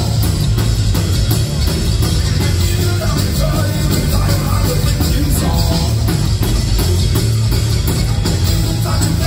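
Live band playing loud thrash grass, a mix of thrash metal and bluegrass, with electric bass and acoustic-electric guitar.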